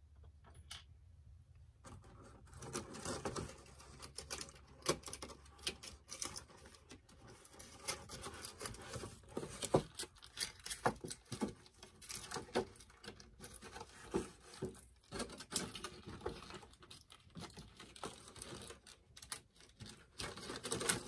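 Plastic toy packaging being handled and pulled apart: irregular crackling, crinkling and small clicks, with some tearing, starting about two seconds in.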